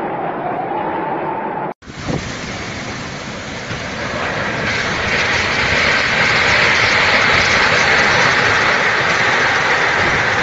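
Storm wind blowing hard, a steady rushing noise that breaks off abruptly a little under two seconds in, then resumes and grows louder from about four seconds in.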